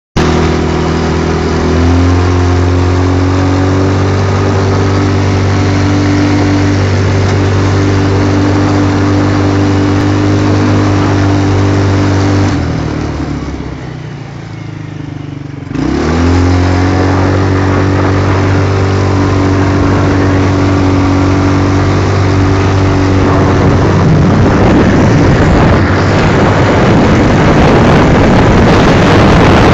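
Quad bike engine running steadily under way, easing off with a falling note for about three seconds around the middle, then picking back up to a steady note. Over the last few seconds a rough rush of wind on the microphone builds up over the engine.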